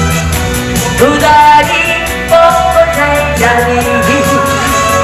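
Background music: a song's backing track with a steady beat and a melody line, with a woman singing.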